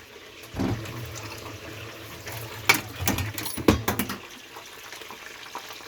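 Water running steadily from a kitchen tap, with a few sharp clinks of utensils on cookware about three seconds in.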